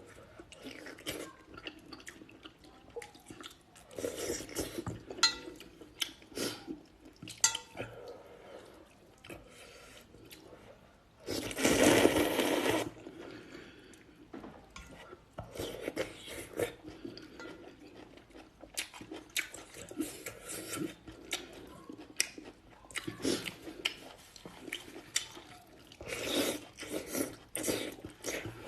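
Close-miked eating of hot and sour noodles: wet slurping and chewing with many small clicks and smacks, and one loud, long slurp lasting over a second about twelve seconds in.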